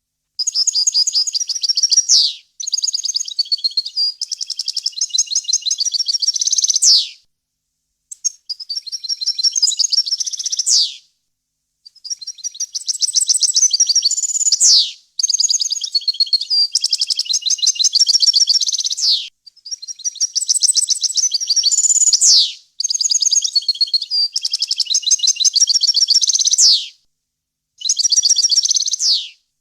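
European goldfinch singing: long phrases of fast twittering trills and chirps, each ending in a quick falling note, with short pauses between phrases.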